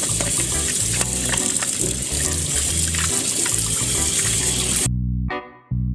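Kitchen tap running at full flow as hands are washed, over background music with a steady bass line. The water cuts off suddenly about five seconds in, leaving only the music.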